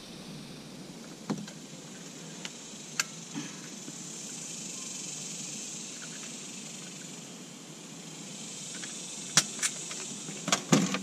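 Hand caulking gun clicking as its trigger is squeezed to push roofing mastic into nail holes along the wall flashing: a few single clicks early, then a quick run of clicks near the end, over a steady background hiss.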